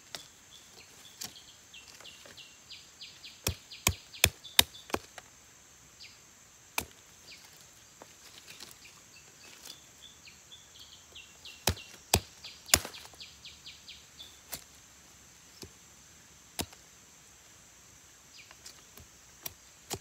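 Machete chopping through slender kepompon plant stems against a wooden log, cutting them to an even length: irregular sharp chops, coming thick and loudest about three to five seconds in and again around twelve seconds.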